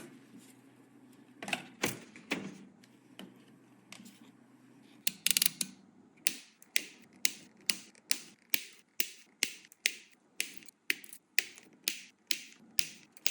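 Sharp clicks, a few scattered at first, then from about five seconds in a steady run of about two clicks a second.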